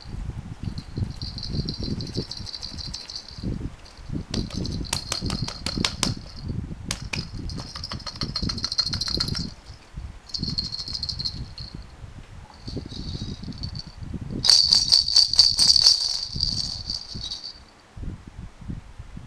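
Small hollow plastic cage balls rattling inside a stretchy rubber toy ball as it is squeezed and rolled in the hands. The rattling comes in repeated bursts of a second or two each, with the loudest burst about three-quarters of the way through, over soft squishing and handling thumps.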